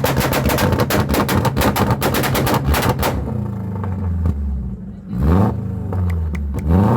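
Motorcycle engine revved hard through its exhaust, a fast run of pulses for about three seconds; the revs then fall to a low idle. About two seconds later it is blipped up and back down once, and it revs up again just before the end.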